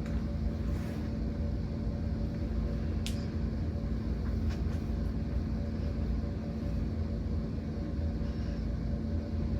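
Small Chinese mini ceiling fan running steadily on speed 3 of its 4 speeds: a low rumble with a steady motor hum. Two faint ticks come about three and four and a half seconds in.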